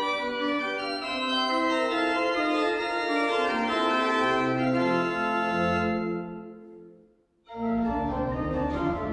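Church organ playing a Baroque prelude in sustained chords. About six seconds in the sound dies away to a moment of silence, then organ music cuts back in abruptly with a low rumble beneath it.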